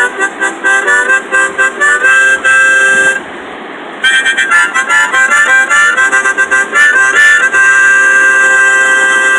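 Harmonica playing quick runs of notes, stopping for under a second about three seconds in, then more fast notes that end in one long held note. Beneath it runs the steady rushing of the river rapids, heard on its own in the short gap.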